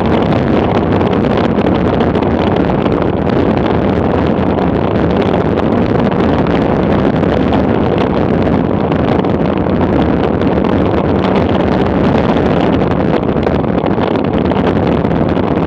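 Steady, loud wind rushing over a bicycle-mounted camera's microphone at downhill speed.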